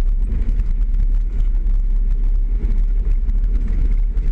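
Nissan Patrol 4WD driving over a rough dirt track: a steady low rumble of engine and tyres, with frequent short knocks and rattles as the vehicle jolts over the bumpy ground.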